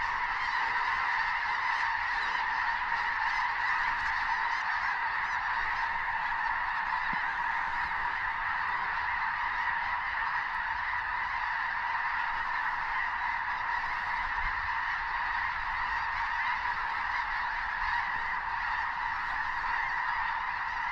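A huge flock of snow geese calling all at once, an unbroken, steady din of overlapping honks.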